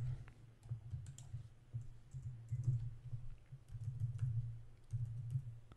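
Typing on a computer keyboard: scattered, uneven keystroke clicks as a command is typed in, over a low hum.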